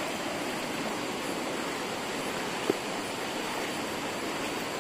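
River water rushing steadily over rocks, a constant even rush. A single brief click sounds a little over halfway through.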